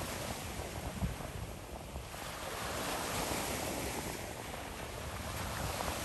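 Sea surf: small waves breaking and washing, swelling louder a few seconds in, with wind rumbling on the microphone and a brief thump about a second in.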